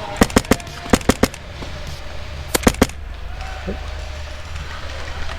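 Airsoft gun firing three short bursts of about three sharp shots each, the last burst about two and a half seconds in.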